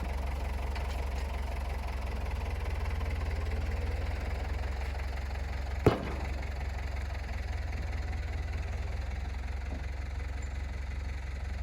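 An engine idling steadily with a low rumble. A single sharp click about six seconds in.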